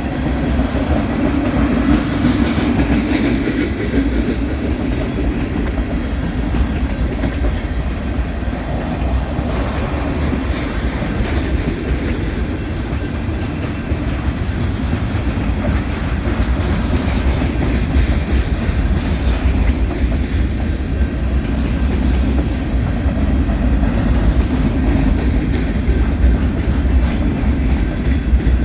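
Freight train cars rolling past at close range: a steady, loud rumble of wheels on rail with clickety-clack over the rail joints.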